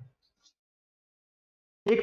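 Near silence in a pause of a man's speech: his voice trails off at the very start and comes back just before the end.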